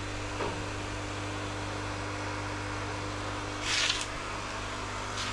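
Steady low electrical hum, with a short hiss about three and a half seconds in.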